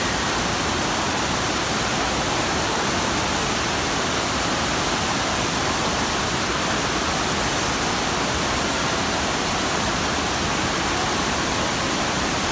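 FlowRider surf simulator's sheet of pumped water rushing over the ride surface, a loud, steady, unbroken rush of water.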